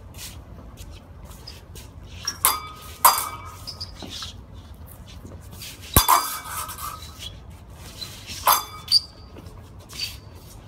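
Thin steel practice swords clashing in a sparring exchange: a series of sharp metallic clinks, each of the strongest followed by a brief ring from the blades.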